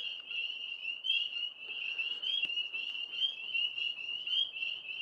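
A chorus of frogs calling: many overlapping fast-pulsed trills merging into a steady, high-pitched drone, with a single faint click about halfway through.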